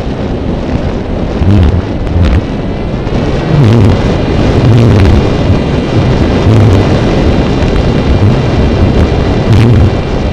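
Wind buffeting the onboard microphone of a flying Raptor RC glider, a low gusty rumble with repeated loud swells. A steady high whine from the glider's motor joins about two and a half seconds in.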